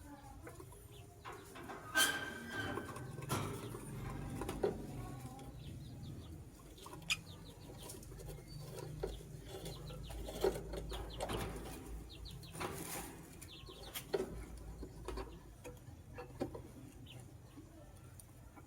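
Caged lovebird: short scattered chirps among sharp clicks and rustles, with a flap of wings, over a steady low background rumble.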